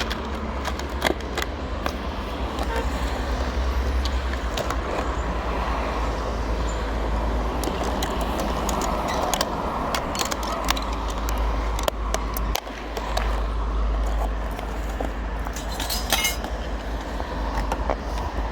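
Steady rumbling noise of a small boat under way, with scattered clicks and knocks on top.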